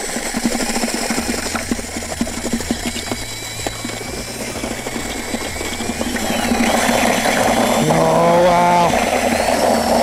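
Cordless drill driving a paddle mixer through wet concrete mix in a plastic bucket: a steady motor whir with many small knocks and scrapes from the paddle and grit against the bucket.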